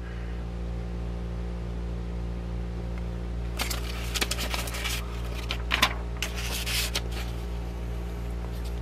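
Paper pages of an old repair manual rustling as they are turned and handled, in several short bursts from about three and a half to seven seconds in, over a steady low hum.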